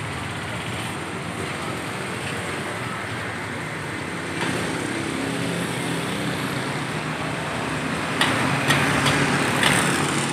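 Steady road traffic running past, with motor hum that swells a little about halfway through. Near the end come several sharp clicks.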